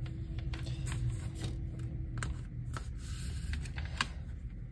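Hands handling a plastic CD jewel case and its paper booklet: scattered light clicks and rubbing, with one sharper click about four seconds in.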